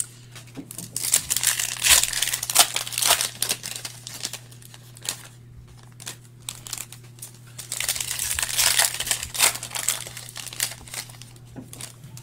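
Foil wrapper of an Optic basketball retail card pack crinkling and tearing as it is opened by hand, in two spells of crackling, about a second in and again around eight seconds in, with small handling clicks between.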